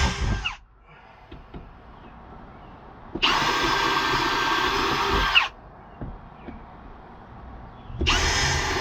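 Power drill (a hammer drill set for wood) running in short bursts, boring into wood: it stops about half a second in, runs again for about two seconds from roughly three seconds in, winding down as it stops, and starts again near the end. Faint knocks in the gaps between bursts.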